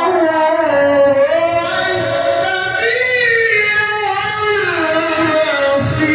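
A man's voice in melodic Quran recitation (tilawah), drawing out long ornamented notes that glide up and down in pitch.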